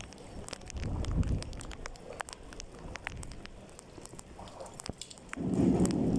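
Typhoon rain and wind: a crackling patter of drops over a steady rush, with a louder low rush of wind on the microphone starting about five seconds in.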